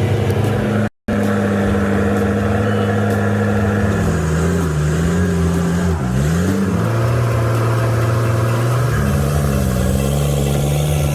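Heavy vehicle's engine running under load, its pitch rising and falling a few times as it is revved. The sound drops out completely for an instant about a second in.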